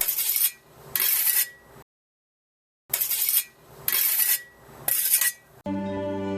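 Short bursts of metallic clinking and scraping, five in all, about a second apart, with a stretch of dead silence in the middle. Soft melodic music starts near the end.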